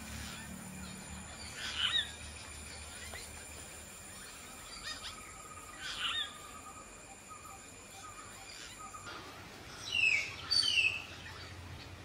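Hill mynas calling: short, loud, sweeping whistled calls about two and six seconds in, and a louder pair of calls about ten to eleven seconds in. A steady high-pitched whine runs underneath and stops about nine seconds in.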